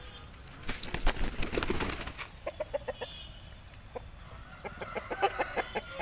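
Aseel rooster flapping its wings in a brief burst about a second in, then giving short clucking notes in two quick runs.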